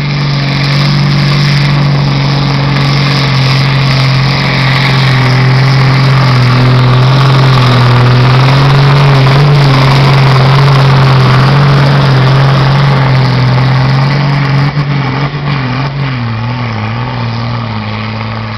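Pulling tractor's diesel engine running flat out under load as it drags a weight-transfer sled down the track. The engine note is loud and steady, then wavers in pitch and fades near the end.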